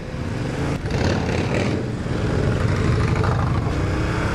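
Yamaha MT-07's parallel-twin engine running as the bike rides along, with a low steady pulse and rushing noise. Its pitch rises near the end as it accelerates.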